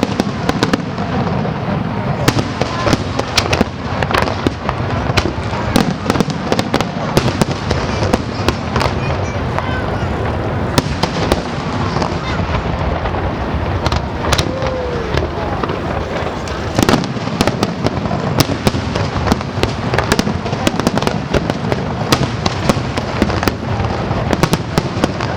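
Aerial fireworks display going off continuously: many sharp bangs and crackles following one another throughout, over a dense rumbling wash.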